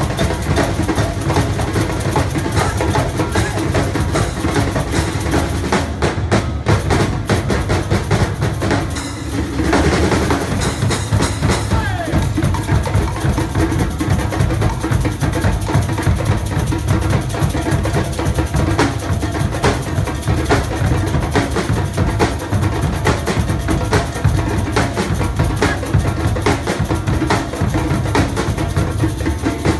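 Percussion ensemble playing a fast, dense drum piece, with bass drum and sharp wood-block-like strokes. The playing eases for a moment about nine seconds in, then carries on.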